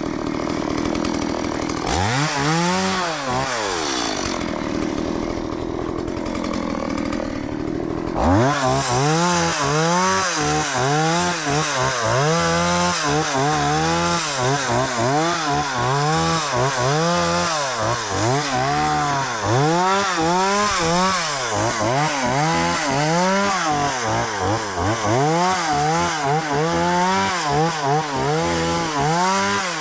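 Chainsaw engine revving up and down over and over, each rise and fall lasting about a second. It drops to a lower, steadier run for a few seconds, then picks up its revving again about eight seconds in.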